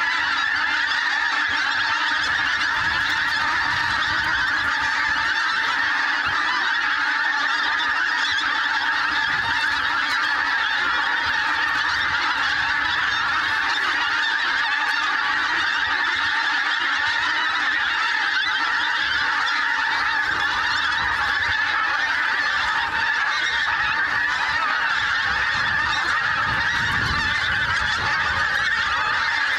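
A large flock of pink-footed geese calling together overhead, a dense, unbroken chorus of high honks with no pause.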